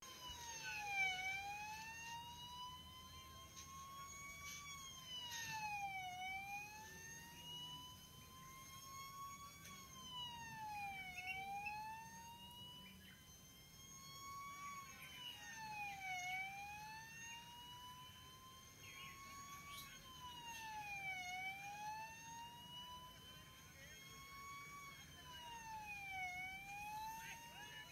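Fire engine siren wailing, its pitch climbing slowly and then dropping more quickly, over and over about every five seconds.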